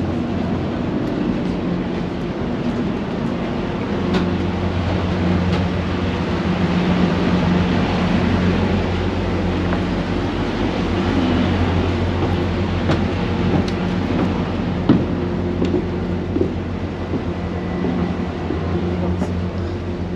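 Sightseeing boat's engines running with a steady low hum, heard on board. A single light knock comes about three-quarters of the way through.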